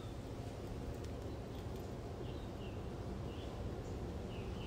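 A bird chirping: several short, high chirps a fraction of a second to a second apart, over a steady low background rumble.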